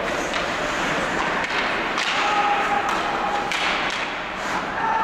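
Ice hockey play on an indoor rink: a steady din of skates and arena noise with a scattering of sharp knocks and thuds from the puck, sticks and boards.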